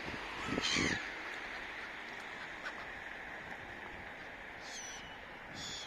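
Gulls calling over a steady wash of surf: one loud, harsh call about half a second in, then two shorter, higher calls near the end.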